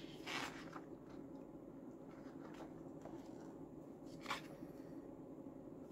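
Faint paper rustles as the pages of a photobook are turned, twice: about a third of a second in and just after four seconds. Under them runs a faint steady hum from a heat pump.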